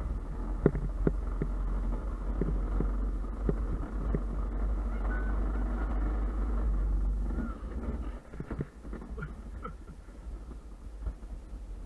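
Luge cart running down a concrete track: a steady rolling rumble with wind buffeting the microphone, and scattered knocks and rattles from the cart. The noise drops noticeably about seven and a half seconds in.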